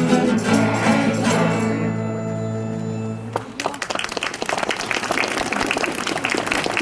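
A children's choir with instrumental backing holds the final chord of a song, which stops about halfway through; then applause breaks out, many hands clapping steadily.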